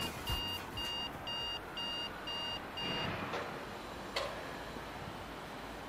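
Electronic beeping: a short, high beep repeated about twice a second, stopping about three seconds in, over faint outdoor background noise, with a single click about four seconds in.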